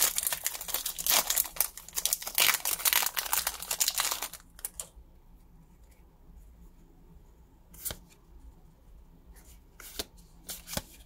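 Foil-lined Pokémon booster pack wrapper being torn open and crinkled by hand, a dense crackling for about four seconds. After that it goes quiet apart from a few short soft clicks as the cards are slid and handled.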